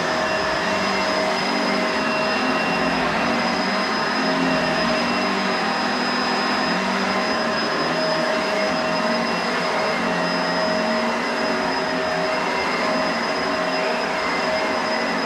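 Bissell SurfaceSense Allergen Lift-Off Pet upright vacuum running steadily as it is pushed over the floor picking up dirt, a steady high whine over the rush of its airflow.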